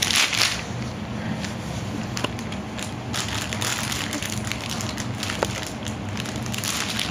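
Plastic packaging crinkling and rustling as a baby grabs and paws at it, with a few light clicks, over a low steady hum.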